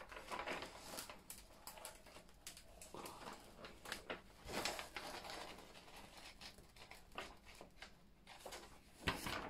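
Faint rustling and crinkling of the paper cover sheet on a diamond painting canvas as it is laid back down and smoothed flat by hand, in short scattered strokes.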